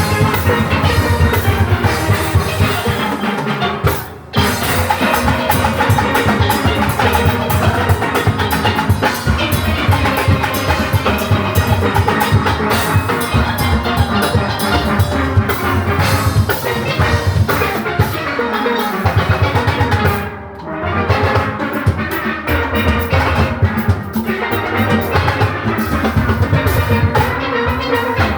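Steel orchestra playing: massed steelpans over a drum kit and percussion. The music drops away briefly twice, about four seconds in and about twenty seconds in.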